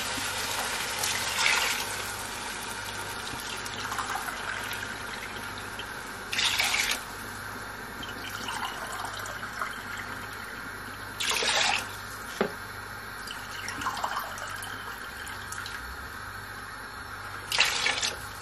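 Water poured cup by cup into a large stainless-steel pot of tomato masala, a steady trickle with three louder gushes some five seconds apart. This is the measured water for tomato biryani, added before the rice goes in.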